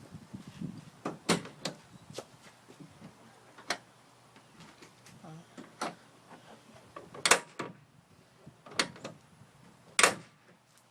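A run of sharp mechanical clicks and knocks, about ten over several seconds, the loudest two about seven seconds in and near the end: a pickup truck's latches and door being worked by hand.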